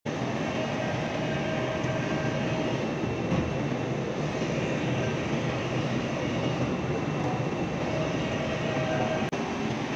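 CNC oscillating knife cutting machine running while it cuts polyester fiber acoustic board: a steady, dense mechanical noise with faint steady tones over it. It drops out for an instant about nine seconds in.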